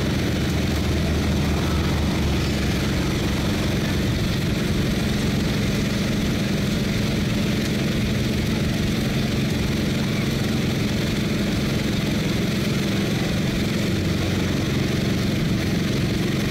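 A steady low mechanical hum, like an engine running.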